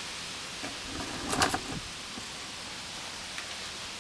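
A short burst of clinking and handling noise from hand tools about a second and a half in, over a steady background hiss.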